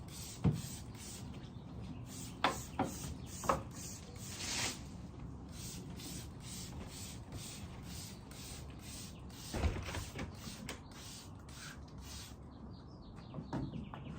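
Hand trigger spray bottle misting water onto a linen dress in quick repeated squirts, about two or three a second, with a few knocks and bumps among them. The squirts stop about twelve seconds in.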